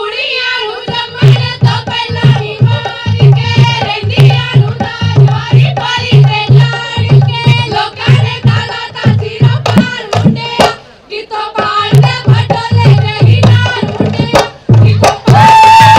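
Women singing a Punjabi Gidha folk song in chorus over a steady drum beat and hand clapping, with a short break in the beat about ten seconds in.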